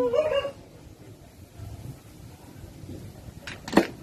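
A dog's drawn-out, howl-like whine tailing off and ending about half a second in, followed by one short, sharp sound near the end.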